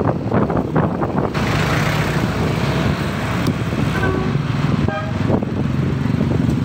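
Motor scooter riding in traffic: a steady engine hum and wind buffeting the microphone. From about a second and a half in, the tyres hiss on wet pavement, and a short horn toot sounds about five seconds in.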